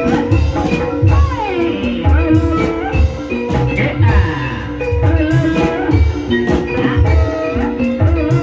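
Live Banyumasan gamelan music accompanying an ebeg dance: kendang hand drums beat a steady rhythm, about one stroke a second, under bronze metallophones ringing repeated notes, with a melodic line that slides in pitch.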